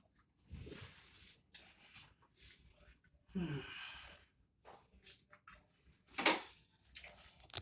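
Scattered handling noises from the washer cabinet being opened: scrapes and clicks, a short sound falling in pitch about halfway through, and a sharp knock about six seconds in, the loudest sound.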